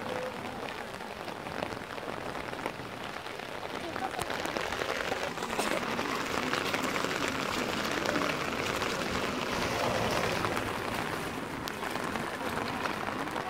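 Steady rain falling, a hiss dotted with the ticks of single drops, growing heavier about four seconds in.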